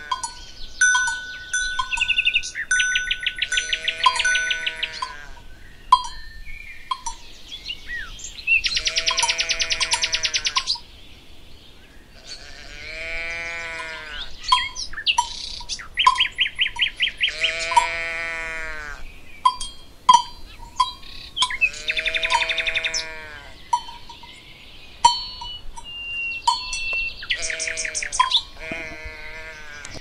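Alpine pasture soundscape: livestock calling out several times in long, arching calls, birds chirping and trilling over them, and bells ringing now and then.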